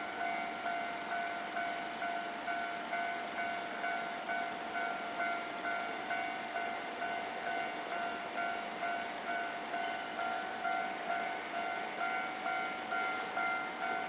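Japanese railway level-crossing warning bell ringing steadily, a little under two electronic strikes a second, signalling that a train is approaching and the crossing is closed.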